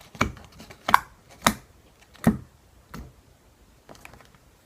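Soft homemade slime being squeezed and worked, giving about five short squelching pops in the first three seconds.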